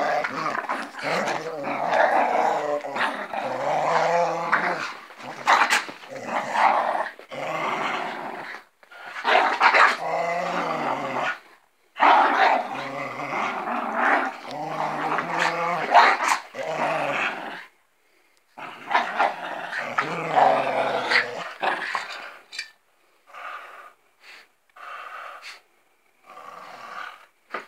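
Two dogs growling in play while tugging on a plush toy between them: long, rough growls broken by brief pauses. Near the end the growling dwindles to short, quieter bursts.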